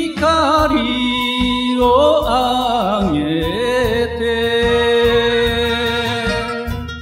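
A solo voice singing an enka song in Japanese over a backing track with a steady beat. The voice bends and wavers through ornamented turns, then holds one long note from about halfway through almost to the end.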